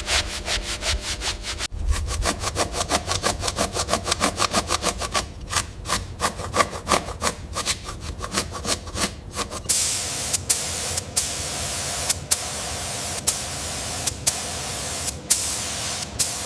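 Hand sanding of a car's bodywork or parts, fast back-and-forth strokes several times a second. About two-thirds of the way through it changes to a steady hiss broken by sharp clicks about once a second.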